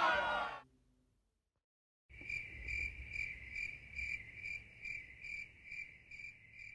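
A voice breaks off just after the start, then a moment of silence, then a cricket chirping in a steady pulse of about two chirps a second, fading toward the end.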